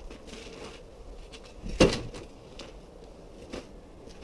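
A few light clicks and one sharper knock about two seconds in: the Linq quick-release mounts of a snowmobile's cargo rack being unclipped and the rack handled as it is freed.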